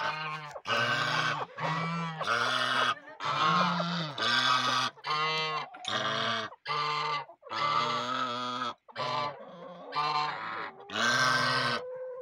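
Domestic geese honking, a run of about a dozen loud calls at roughly one a second.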